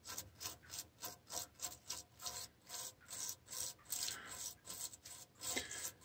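Bronze wire brush scrubbing calcium scale off a part of a boiler water feeder valve, in short rasping strokes about three a second. The scale has blocked the valve's small holes and keeps it from closing.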